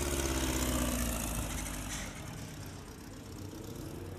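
Off-road race buggy engine running, loudest for the first couple of seconds and then fading.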